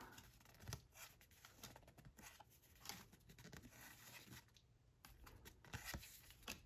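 Faint handling of tarot cards: soft, scattered rustles and taps of card stock as cards are slid out and shown one by one, close to silence.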